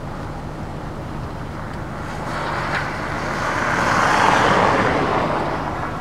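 A vehicle passing by: its road noise swells from about two seconds in, peaks a little past the middle and fades again, over a steady low hum.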